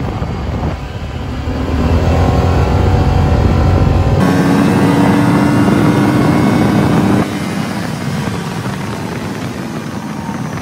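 Honda Pioneer UTV underway, its engine note rising as it picks up speed about a second in, then running at a steady drone. The sound shifts abruptly around four seconds in and again near seven seconds.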